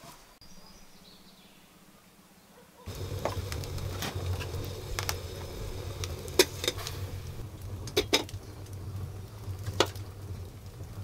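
Near quiet for about three seconds, then a wood fire burning in a clay-brick stove's firebox: a steady low rumble with crackles and sharp pops, and a metal kettle clinking as it is pushed among the burning wood with a stick.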